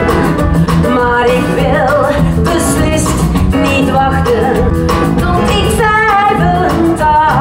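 A woman singing a Dutch-language song live with a band of keyboard, drum kit and electric bass.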